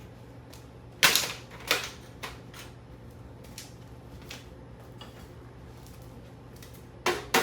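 Sharp blows on a Cooler Master Elite 130 mini-ITX computer case: two loud strikes about a second in, then a few faint ticks, then a quick run of strikes near the end, about three a second.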